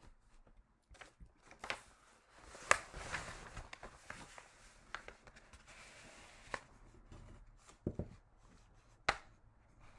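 Faint scattered clicks and knocks, about seven in all, with a soft rustling hiss through the middle seconds: small handling noises in a small room.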